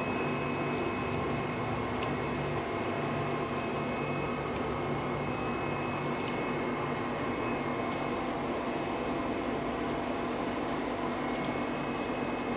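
Steady mechanical hum and hiss from a fan or motor, with a few faint sharp snips of kitchen scissors cutting through king crab shell.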